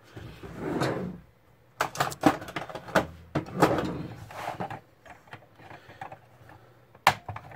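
Handling noise from the back of an LCD monitor: scrapes and sharp clicks and knocks as the metal stand bracket is worked, pliers are set down and the plastic back panel is shifted on a cutting mat. There is a run of clicks about two seconds in and one more sharp click near the end.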